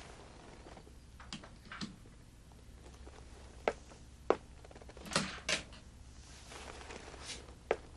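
About five sharp taps and knocks spread over several seconds, two close together near the middle, with a brief rustle before the last one: a handbag and small objects being handled and set down at a desk.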